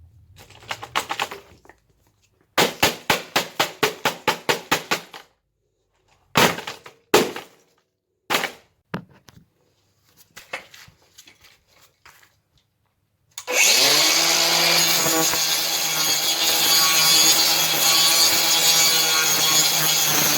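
A run of about a dozen quick, even scraping or clicking strokes and a few separate knocks, then, about seven seconds before the end, a loud steady rushing motor sound starts, with a hum that drops in pitch and then holds steady.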